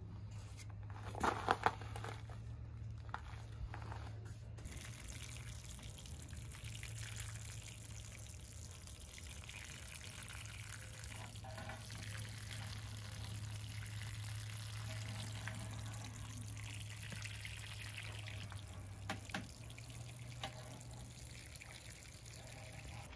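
Garden hose watering wand with a shower head spraying water onto loose soil: a steady hiss of falling water that starts about five seconds in.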